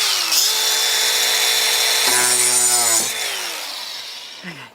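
Electric power saw running through wood. The motor dips briefly under load about a third of a second in. About three seconds in it is released and winds down, its pitch falling as it coasts to a stop.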